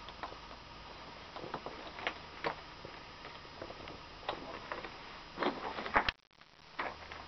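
Footsteps on loose stone rubble: scattered short scuffs and clicks over a steady hiss, busiest just before the sound cuts out briefly about six seconds in.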